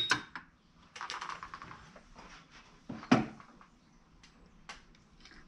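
Hand tools and small objects being handled and set down on a wooden work board: a sharp knock at the start and another just after, a scraping rustle about a second in, and another sharp knock about three seconds in.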